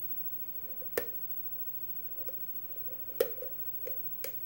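Lock pick and tension tool clicking inside a brass Ilco pin-tumbler cylinder as spool pins are worked: a handful of short sharp clicks, the loudest about a second in and just past three seconds, with smaller ones near the end.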